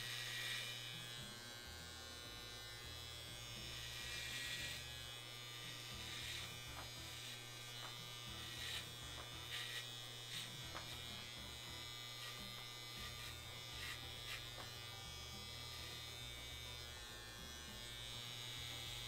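Corded Wahl electric hair clippers with a number-one guard running with a steady buzz as they cut short hair, the rasp of the blades through the hair coming and going as they pass over the head.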